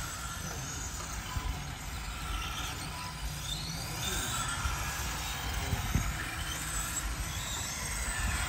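1/10-scale RC touring cars' motors whining faintly, the pitch rising and falling again and again as the cars speed up and slow down around the course, over a constant low rumble.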